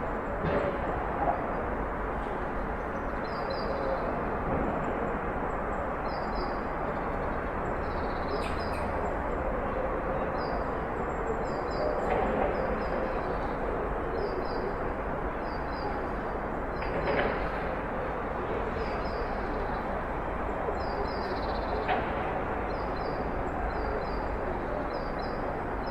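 Backyard ambience: a steady low rumble of distant traffic under small birds chirping in short, high, repeated notes, with a few faint knocks.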